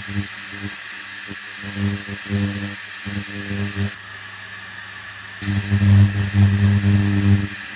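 Tower stovetop pressure cooker hissing steadily as steam escapes at its valve while pressure builds. A low hum comes and goes alongside it, strongest near the end.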